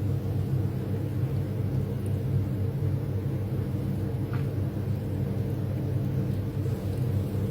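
Steady low hum of a running kitchen appliance, with a faint tick about four seconds in.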